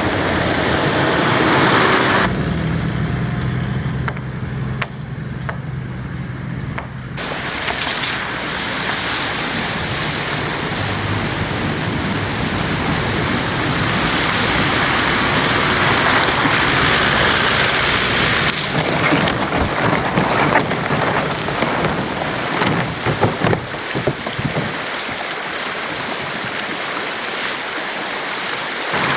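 A four-wheel drive's engine running along a dirt road, then splashing through a shallow river crossing, followed by the rushing of a rocky stream and the splashes of someone wading through it.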